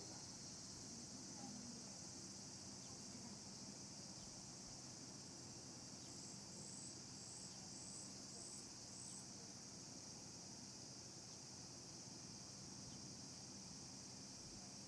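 Faint, steady high-pitched insect shrilling, with a short run of six rhythmic chirps, about two a second, partway through.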